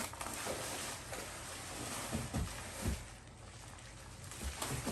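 Faint rustling of packaging being handled, with a couple of soft, low knocks.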